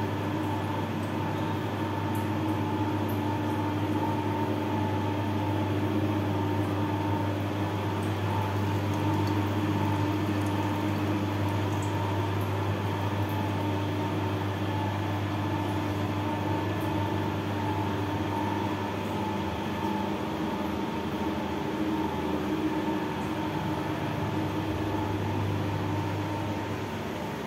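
Wood-pressed (ghani) oil mill running: its electric drive turns a wooden pestle round a steel bowl of crushed mustard seed. The machine gives a steady mechanical hum with a deep drone and a few fixed tones, a little quieter near the end.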